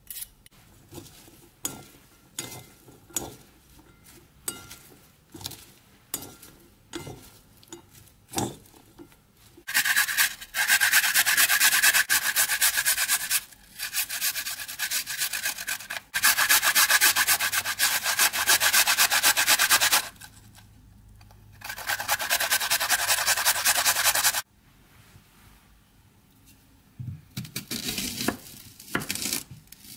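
Garlic cloves being grated on a stainless-steel box grater: long spells of fast, even rasping strokes, the loudest sound here. Light scattered taps come first, and a knife cutting an onion on a wooden board begins near the end.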